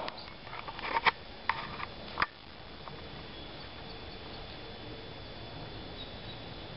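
A few short, sharp clicks and knocks in the first two seconds, the loudest about a second in. After that, a steady low background hum of the indoor arena.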